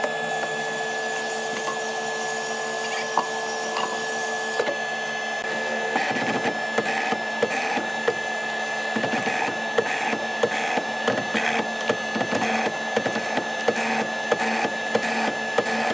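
Mortising machine cutting a mortise in hardwood: its motor hums steadily while the square chisel bit plunges into the slab and chops out chips. From about six seconds in the strokes come quickly, about two a second.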